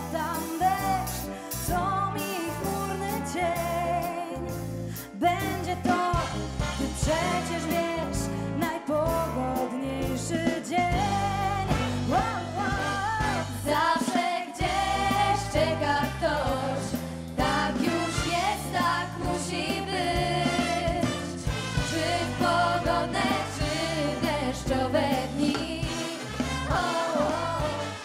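Four women singing a pop song together, backed live by a wind orchestra with brass and saxophones.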